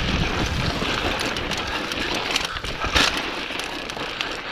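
Mountain bike riding over rough rock and dirt: steady tyre noise with the bike rattling over bumps, and a harder knock about three seconds in.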